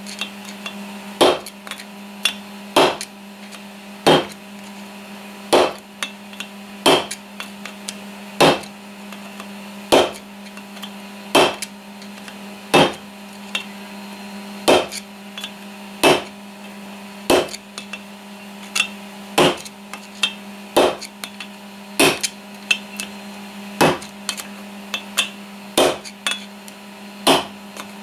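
Hammer striking a screwdriver used as a drift against a three-jaw lathe chuck, driving out a stuck part that has just started to move. The blows are sharp and metallic with a short ring, evenly paced at about one every second and a half.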